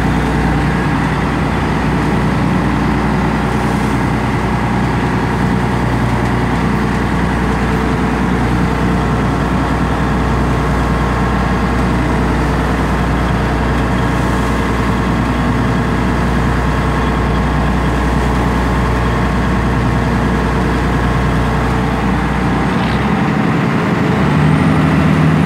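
Fishing boat's engine running steadily under way, with water rushing along the hull. Near the end the engine note changes.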